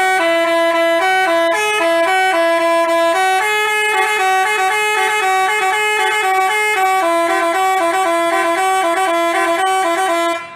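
Telolet 'basuri' multi-tone bus horn playing a tune, its notes stepping up and down between a few pitches in quick short blasts. It fades out right at the end.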